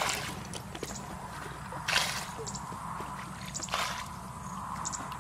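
Muddy water splashing in a shallow rice-paddy pool as it is bailed with a plastic pot: three separate splashes, near the start, about two seconds in and near four seconds, with wet squelching between.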